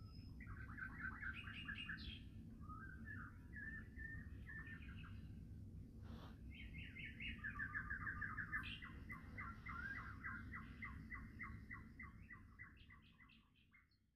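Small birds singing in rapid trains of short chirps, busiest in the second half, over a low steady rumble; it all fades out near the end.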